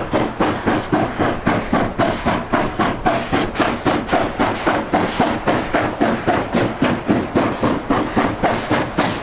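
China Railways JS class steam locomotive working hard under load, its exhaust chuffing in a steady beat of about four beats a second.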